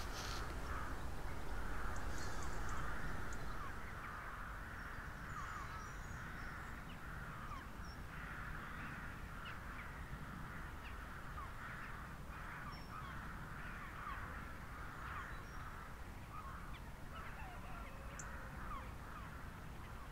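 Many birds calling at once in a steady chatter of short, overlapping calls, over a low rumble that is stronger in the first few seconds.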